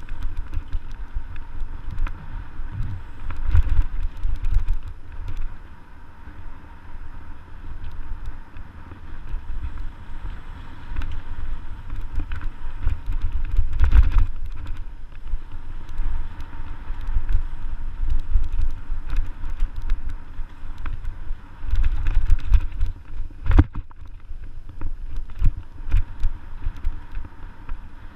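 Mountain bike riding a dirt singletrack, heard as wind buffeting on the camera microphone with a low, gusty rumble, and scattered rattles and knocks from the bike over rough ground, one sharp knock late on.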